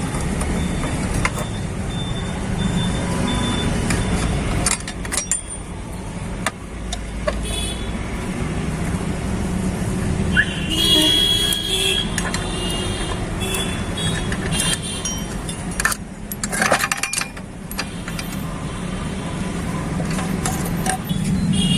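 Hand tools clinking and knocking on metal as the clutch cover of a Honda Activa scooter is unbolted and taken off, with scattered sharp clicks and knocks over a steady low traffic-like hum.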